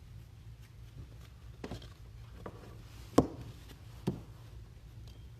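A few short knocks and taps on a tabletop as card boxes and packs are handled, the loudest a little past halfway, with a lighter one just under a second later.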